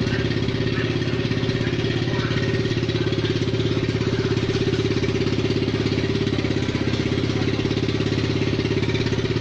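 125cc ATV engine idling steadily with an even, regular pulse.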